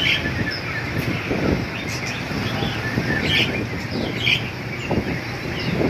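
Caged songbirds chirping in short, scattered calls over low background noise.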